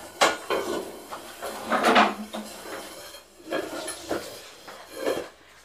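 Kitchen chairs and table being moved about by hand as a person sits down: a few knocks and a longer scrape of chair legs across the floor about two seconds in.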